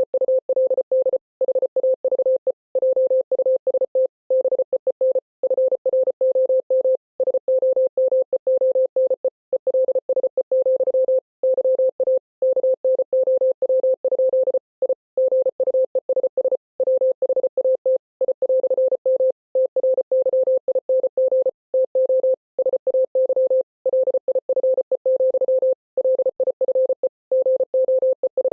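Computer-generated Morse code: a single steady mid-pitched beep keyed on and off rapidly in short and long pulses (dots and dashes), with brief silent gaps between letters and words, spelling out a text at a fast, even pace.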